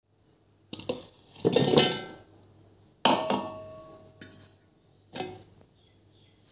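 Onion, green chilli and tomato pieces dropped into a stainless-steel mixer-grinder jar: a few separate clunks and clinks against the steel. The loudest comes about three seconds in, and the jar rings briefly after it.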